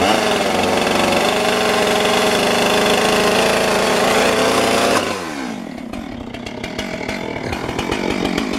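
Gas chainsaw held at full throttle for about five seconds, then let off so the engine falls back to a lower, uneven idle for the rest of the time.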